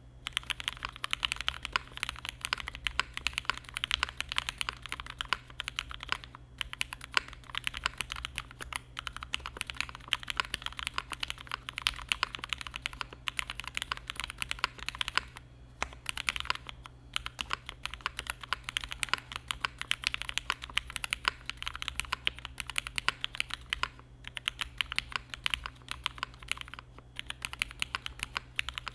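Mechanical keyboard with a polycarbonate plate being typed on quickly and continuously, a dense run of key clicks broken by a few brief pauses.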